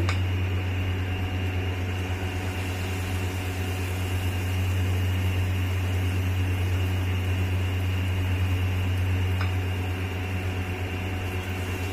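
Steady low mechanical hum with a faint even hiss underneath, and two light clicks, one at the start and one about nine seconds in.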